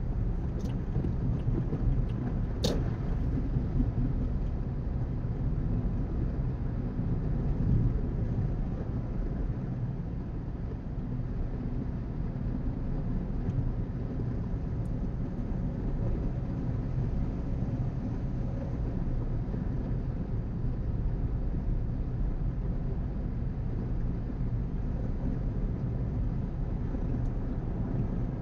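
Steady low rumble of a car cruising at highway speed, heard from inside the cabin: engine and tyre-on-road noise. A single sharp click about three seconds in.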